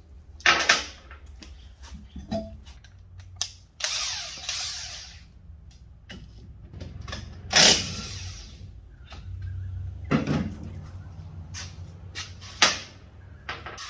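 Short bursts from a cordless impact wrench and sharp metal clanks of tools and parts as a car's front wheel and brake caliper are taken off, over a low steady hum.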